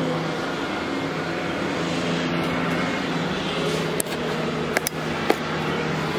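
Steady outdoor rushing noise with a low, even hum, and a few sharp clicks about four to five seconds in.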